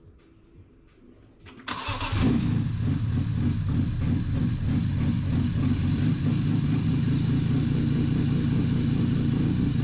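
BMW E46 M3's S54 straight-six engine cranking briefly a little under two seconds in, catching almost at once and settling into a steady idle. It is the engine's first cold start after the build and a VANOS refresh, so it runs a little choppy while it settles its timing.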